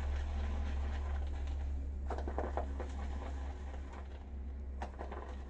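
Silvertip badger shaving brush whisking shaving-soap lather in a bowl: soft, wet, even swishing, with a few sharper ticks about two seconds in and again near the end.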